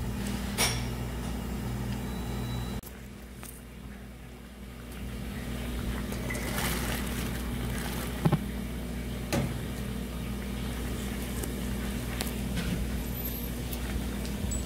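Large pot of broth boiling on a stove with a steady low rumble, and a few short knocks of a metal ladle in the pot.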